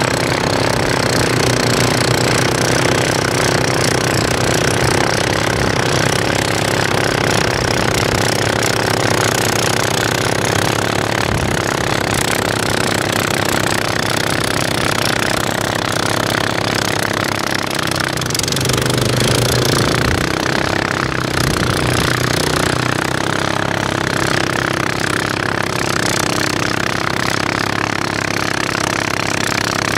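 Steady engine noise from a Suzuki King Quad 700 ATV on tracks and its front-mounted snowblower, clearing snow as it moves along. The engine note dips briefly and recovers about eighteen seconds in.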